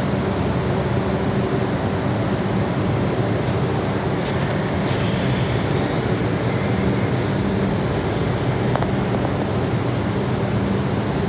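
R142 subway car running between stations, heard from inside the car: a steady, loud rumble and roar of wheels on rail, with a few sharp clicks along the way.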